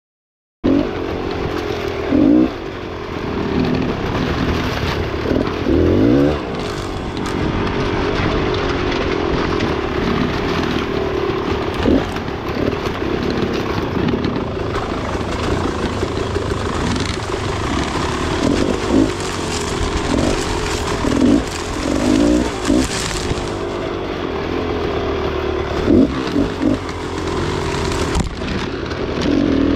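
Beta enduro dirt bike engine running while being ridden, its pitch repeatedly rising and falling with the throttle. Short rattles and scrapes sound over it. The sound starts abruptly about half a second in.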